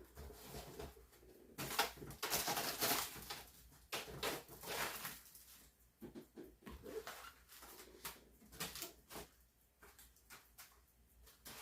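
Frozen food packages and boxes being handled and set into a freezer: irregular rustling, with scattered light knocks and clicks, busiest a couple of seconds in.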